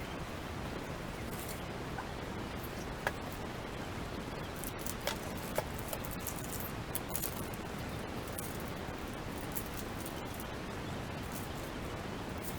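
Steady background hiss with a few light clicks and taps scattered through the middle.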